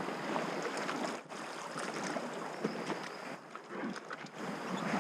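River water splashing and sloshing, with scattered small knocks and rustles.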